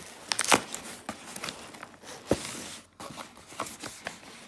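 Cardboard shipping box being pulled open by hand: packing tape tearing and the cardboard flaps scraping and rustling, with sharp rips about half a second in and again just after two seconds.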